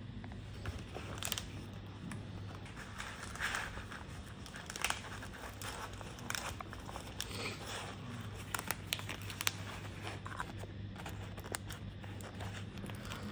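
Fresh banana leaf being folded and crinkled by hand around a stuffed eggplant, with irregular rustles and sharp crackles over a steady low hum.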